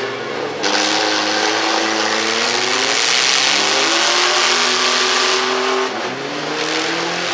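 Several demolition-derby mini pickup trucks' engines revving hard, their pitches rising and falling and overlapping, over a dense steady wash of noise.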